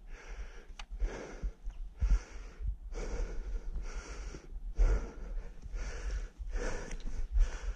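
A man breathing heavily close to the microphone, about one breath a second, as he walks through scrub, with low thumps from his steps underneath.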